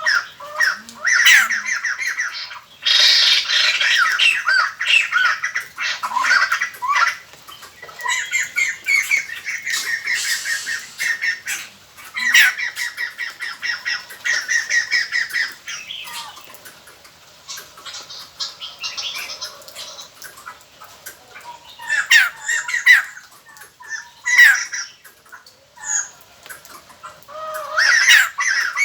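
White-crested laughingthrushes calling as a group, played as a lure recording: loud bursts of fast chattering calls that last a few seconds each, with short pauses between them and a quieter, sparser stretch in the middle.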